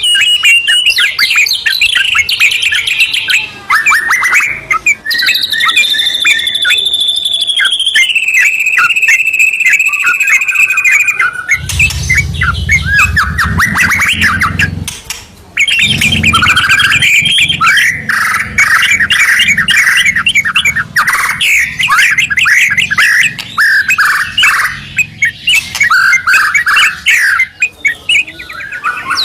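White-rumped shama and yellow-vented bulbul singing loudly together in a continuous stream of rapid trills, chatter and whistles. About five seconds in comes a long held whistle that steps down in pitch and holds for several seconds. A low rumble runs underneath through the middle stretch.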